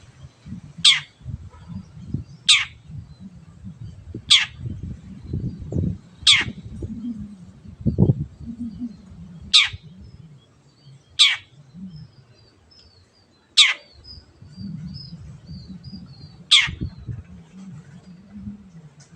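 Long-tailed shrike (cendet) giving short, harsh calls that sweep steeply downward in pitch, eight times, about every one and a half to three seconds. Faint twittering chirps of a small bird come in around the middle, over a low background rumble.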